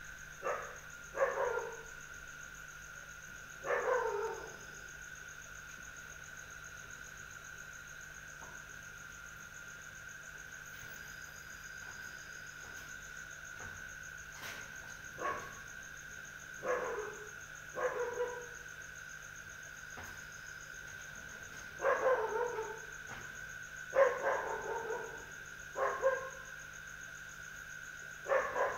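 A dog barking now and then, in single barks and short runs of two or three, over a steady high insect drone like crickets.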